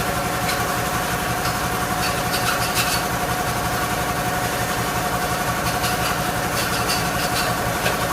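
A small motor running steadily at a constant speed, with short scratchy noises about two seconds in and again from about six to seven and a half seconds.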